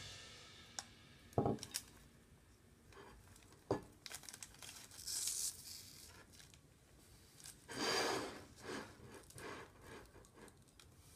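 Faint crinkling of a plastic candy packet as it is handled and laid down on a table, with a few light taps.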